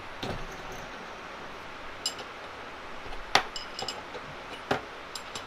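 Metal clinks and taps from the parts of a shop-made steel steady rest and the hand tools used on it as its adjusters are fitted and tightened. A handful of sharp, scattered clicks, the loudest a little over three seconds in.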